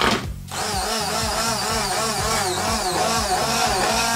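Whirring power-tool motor whine with a pitch that wavers up and down in regular swoops, laid over a hand blender as a comic sound effect, over background music.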